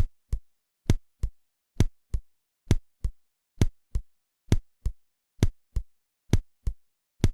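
Heart sounds heard through a stethoscope: regular lub-dub pairs of the first and second heart sounds at about 65 beats a minute, eight beats in all. This is a rhythmic heartbeat at 65–70 a minute that sounds the same whether it comes from sinus rhythm, an accelerated AV-junctional rhythm or an accelerated idioventricular rhythm.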